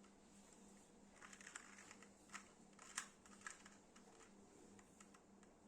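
Very faint, irregular clicking of a 2x2 Rubik's Cube's layers being turned, in a short flurry about a second in and ending with a sharper click near the middle, over a faint steady hum.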